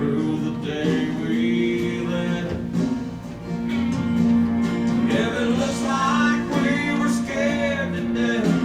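Recorded country song: acoustic guitar with a singing voice coming in more strongly in the second half.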